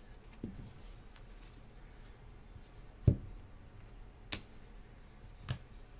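Rigid plastic card holders (top loaders) set down and stacked on a table: a few separate knocks and clicks, the loudest a dull thump about three seconds in, followed by two sharper clicks.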